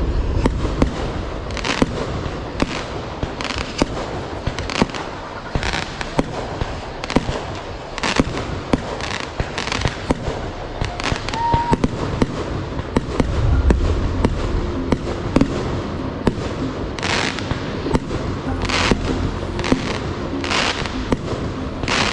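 Consumer aerial fireworks going off in a rapid, irregular string of sharp bangs and crackles, several reports a second at times. Deeper booms come in about two-thirds of the way through and again at the end.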